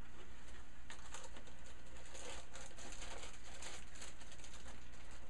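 Packaging being handled as a small cardboard microphone box is opened and its contents pulled out: light rustling and crinkling, a quick run of small crackles and taps starting about a second in, over a steady low hum.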